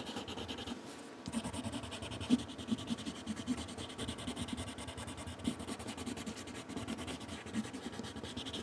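Colourless blender pencil rubbed hard back and forth over coloured pencil on a paper card: a steady scratchy rubbing made of quick short strokes, which eases briefly about a second in.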